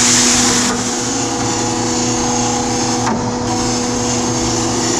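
Okamoto surface grinder's wheel regrinding the machine's own table: a steady grinding hiss over the hum of the spindle motor. The hiss is loudest in the first second, then eases, with a brief dip around three seconds in. The wheel is cutting more at the ends of the table than in the middle, a sign the table is not yet ground flat.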